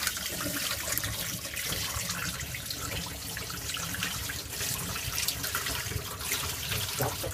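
Dirty water being poured slowly from a plastic bucket of aquarium gravel into a stainless steel sink, a steady pouring splash. The water is decanted to carry off the floating algae while the gravel stays in the bucket.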